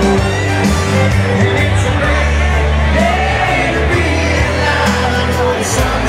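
A live electric blues band playing through a loud amplified sound system, with held bass notes, and with shouts and voices from the crowd over the music.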